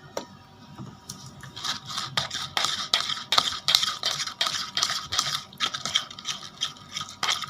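Plastic spoon stirring and scraping in a plastic bowl: rapid clicks and scrapes that get busier about a second and a half in, as borax activator is worked into the glue and the slime starts to form.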